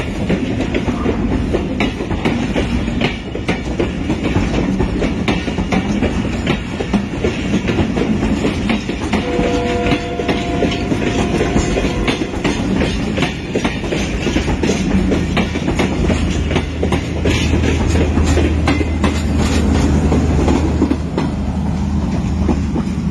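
Passenger train running by on the track, its wheels clicking steadily over the rail joints. About nine seconds in, a steady two-note tone sounds for about three seconds, and in the second half a low steady hum comes in under the wheel noise.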